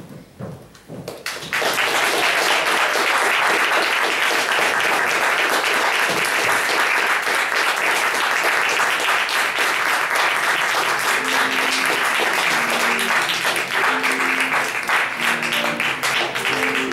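Audience applauding loudly, starting about a second and a half in. Music with steady held notes comes in under the applause about two-thirds of the way through.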